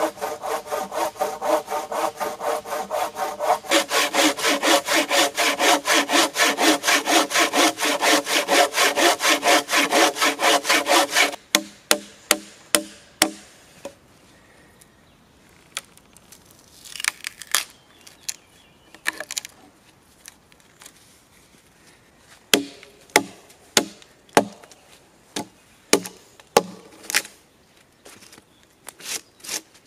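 Hand saw cutting across a log in quick, even back-and-forth strokes, which stop abruptly about eleven seconds in. Then come sharp chopping knocks with a blade, scattered at first and then steadier near the end, as the wood between the saw cuts is split out.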